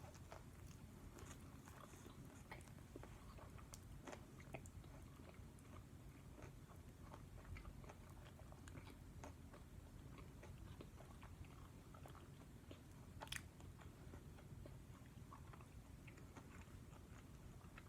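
A person chewing a mouthful of fried chicken sandwich close to the microphone: faint, irregular crunches and wet mouth clicks from the crispy breading, with one louder crunch about two-thirds of the way through.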